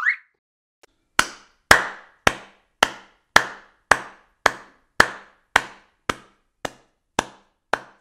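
A steady series of sharp knocks, just under two a second, each with a short ringing tail, starting about a second in and growing fainter toward the end.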